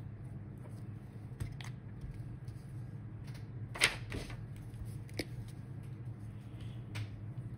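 About six sharp plastic clicks and taps from highlighter pens and their caps being handled, the loudest a little before the middle, over a steady low hum.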